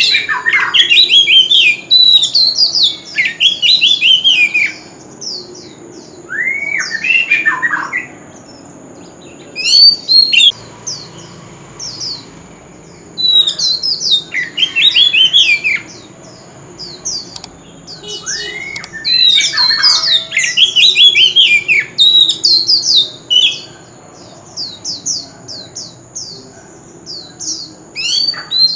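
Oriental magpie-robin singing loud, rich song phrases of quick varied whistles and gliding notes, in bouts broken by short pauses.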